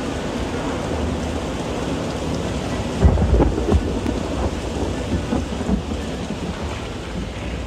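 Rain and thunder on the soundtrack: a steady rain hiss under low rumbling, with a louder crack and roll of thunder about three seconds in.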